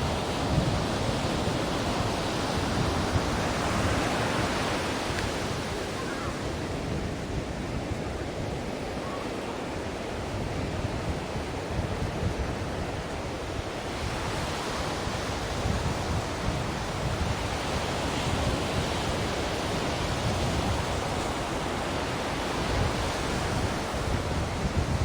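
Ocean surf: waves washing in over a continuous low rumble. The hiss of the water swells twice, a few seconds in and again past the middle.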